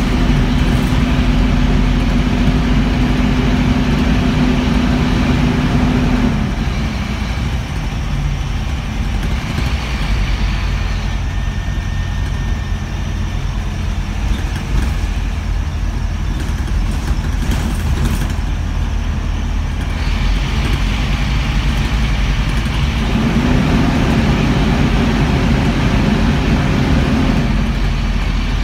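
Scania N230UB bus running, heard from inside the passenger saloon: a steady low engine rumble with a humming tone that drops away about six seconds in and comes back near the end.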